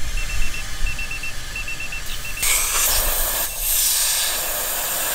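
Air hissing out of a tyre as its pressure is let down: a thinner hiss that turns into a loud rush of air about two and a half seconds in. A high electronic beep repeats in quick groups of about four throughout, loudest in the first half.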